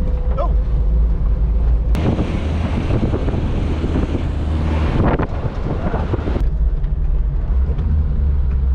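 Car driving, its engine a steady low rumble with wind buffeting the microphone. About two seconds in, a loud rush of noise starts abruptly and cuts off about four seconds later.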